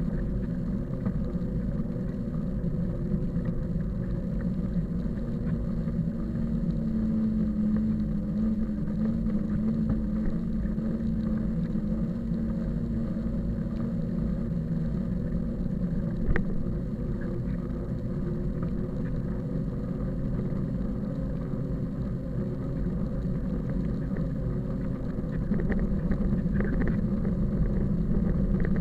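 A motor running steadily with a low rumble, a little louder near the end.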